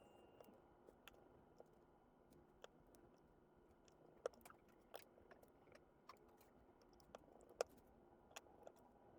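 Near silence with faint, scattered clicks and taps of small tools and phone parts being handled, two sharper clicks about four and seven and a half seconds in, over a faint steady hum.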